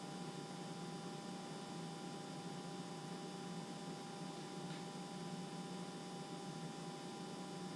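Steady electrical hum with hiss and several faint steady tones, with nothing else sounding.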